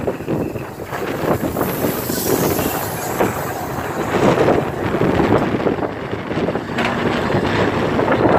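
German class 01.5 steam locomotive 01 519 rolling slowly past at close range: a dense rumble and clatter from its wheels and running gear, with a high hiss about two seconds in.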